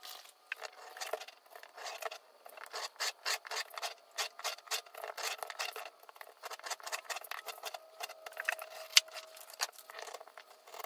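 Utility knife blade scoring and slicing thin wood veneer on a cutting mat: a quick run of short, scratchy cutting strokes, with one sharp click about nine seconds in.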